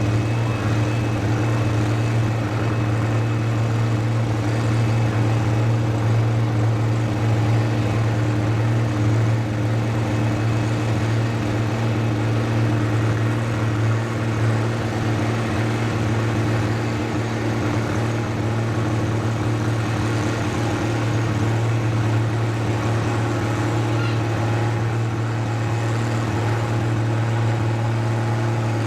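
A farm tractor engine running at a steady speed with a constant low hum, its pitch and loudness unchanging throughout.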